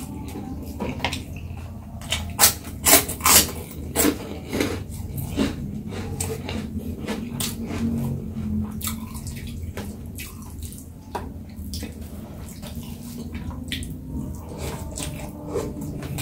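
Close-up eating sounds: wet chewing of rice and side dishes, with a run of sharp crunches about two to three and a half seconds in, over a steady low hum.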